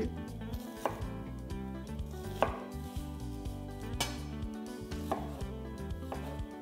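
Chef's knife cutting an onion on a wooden cutting board: about five separate knife strikes against the board, irregularly spaced, as the onion is cut for fine chopping.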